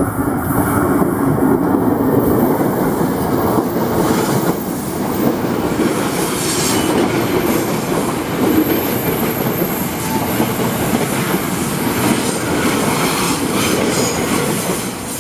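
KRL Commuter Line electric train running close past on curving track: a loud, steady rumble of wheels on rail with clattering over the joints and a thin, high wheel squeal at times.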